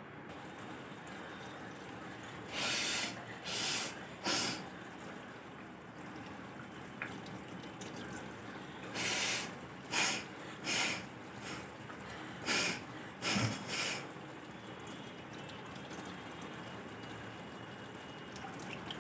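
A person forcing short, breathy bursts of air through the nose: three a few seconds in, then a run of about seven more in the middle.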